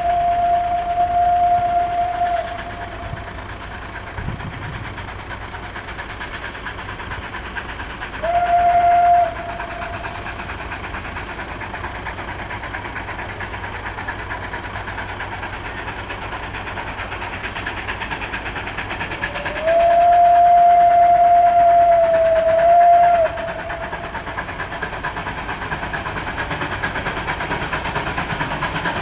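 Whistle of a ČSD class 423.0 steam tank locomotive giving three single-note blasts as it approaches: a long one ending about two seconds in, a short one, and a long one of about four seconds. The train's running noise grows louder toward the end.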